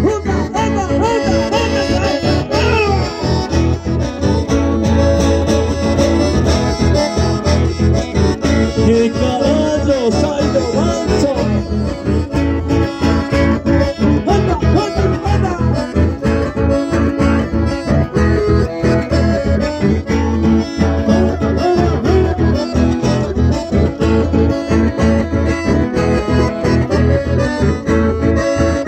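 Live band playing dance music: accordion and guitar over a steady beat.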